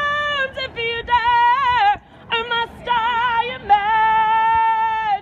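A woman singing unaccompanied, holding several long notes with vibrato and short breaks for breath between them.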